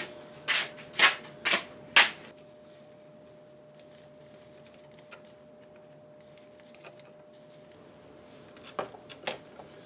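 Four short scraping strokes, about two a second, then quiet with a faint steady hum; a few quicker scrapes near the end.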